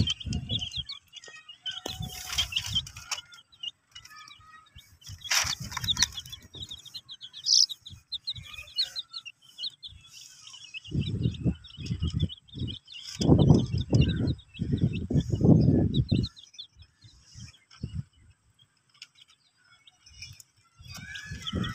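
A flock of baby chicks peeping continuously in quick, high, short notes. Several short bursts of low noise cut in, the loudest in the middle.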